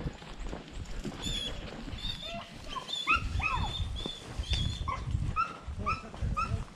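Hunting dogs barking and yipping in a quick run of short, high calls, some rising or falling in pitch, while on the hogs. Under the calls is a low rumbling from the moving camera.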